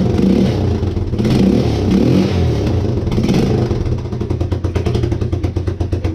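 Suzuki 230 quad's single-cylinder four-stroke engine running on its first start after a carburetor swap. It surges several times in the first three seconds or so, then settles into an even idle about four seconds in.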